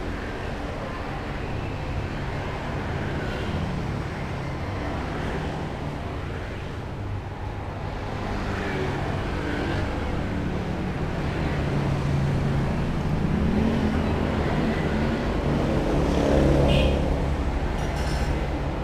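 Road traffic: vehicle engines running steadily, with one engine growing louder near the end as it passes close by.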